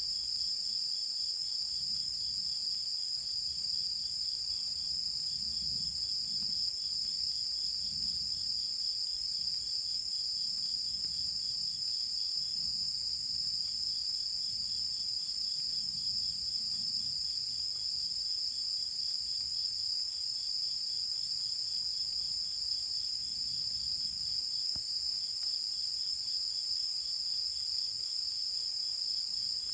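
Night chorus of insects: a steady, high, shrill trill over a quieter rapid pulsing chirp that breaks off twice, about twelve seconds in and again past twenty seconds.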